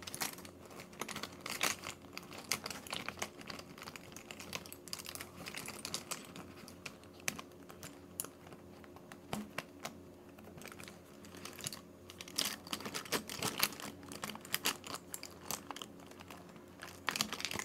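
Rummaging through makeup items in search of an eyeliner pencil: small objects being moved and knocked together in irregular clicks and light clatter, busier near the end.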